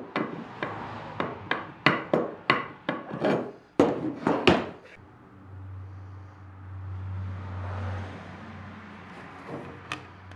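Shop work on wood: about a dozen sharp strikes or strokes against the wood, roughly three a second, for the first five seconds, then a steady low hum for the rest.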